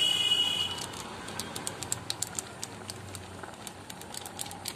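Egg omelette curry simmering in a kadai, with irregular light crackling pops over a faint hiss. A brief high steady tone sounds in the first second.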